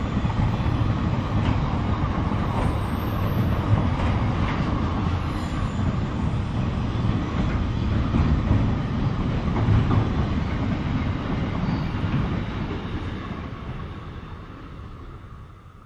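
Container wagons of a freight train rolling past, wheels clattering on the rails, the sound fading away over the last few seconds as the end of the train passes and moves off.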